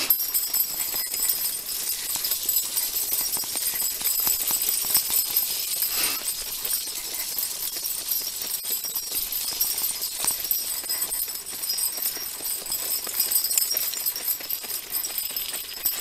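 Dog sulky rolling along a dirt trail behind a running dog, with a continuous rattling and jingling from the cart and harness and a dense run of small ticks.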